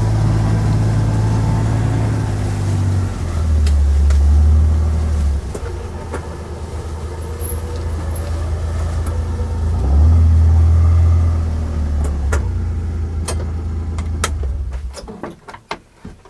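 An engine running with a steady low hum. Its speed shifts a few times, then it winds down and stops about a second before the end, followed by a few clicks.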